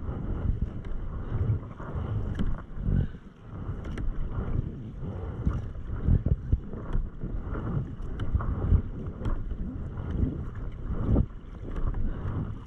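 Kayak paddle blades dipping and pulling through calm lake water in steady strokes, with splashes and drips off the blade, mixed with low wind buffeting on the microphone.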